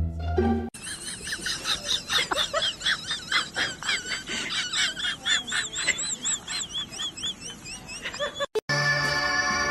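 An animal's rapid run of short, high-pitched squeaking calls, several a second, some warbling up and down in pitch near the middle.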